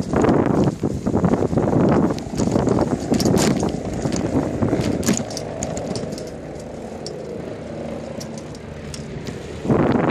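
Wind rushing over the microphone of a bicycle-towed dog trailer rolling along a street, with light clicks and rattles from the trailer. The rush drops for a few seconds past the middle and comes back loud near the end.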